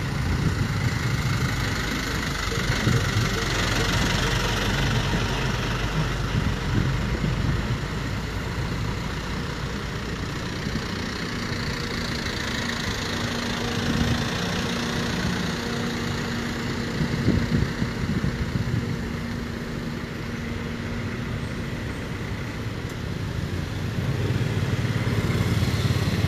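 Road traffic in a slow jam: cars, trucks and motorcycles idling and creeping along, engines running with a steady low rumble. A steady engine hum stands out for several seconds in the middle.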